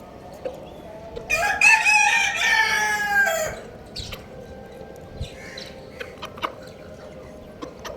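A rooster crowing once: a single cock-a-doodle-doo lasting about two seconds that starts a little over a second in and sags slightly in pitch toward its end. Light scattered clicks and taps sound around it.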